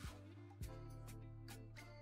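Quiet background music with held notes over a light beat.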